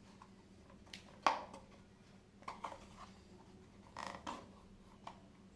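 Handling of a Swiss Army knife: scattered light clicks and knocks, the sharpest about a second in and a small cluster near the end.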